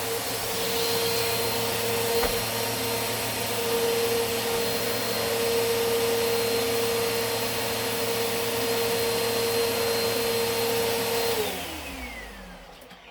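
Eureka AirSpeed Plus NEU110 compact vacuum cleaner running steadily, not too noisy, with a motor whine held at one pitch. About eleven seconds in it is switched off and the motor winds down, its pitch falling away.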